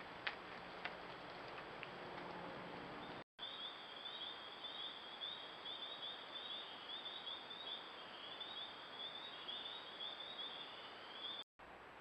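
Faint night ambience with a few small clicks, then, after a brief break, a high-pitched chirping call repeated steadily about two to three times a second, from a night-calling insect, until it cuts off near the end.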